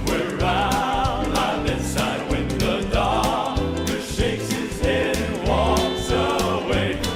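Southern gospel vocal quartet singing in close harmony over a band with bass and drums keeping a steady beat.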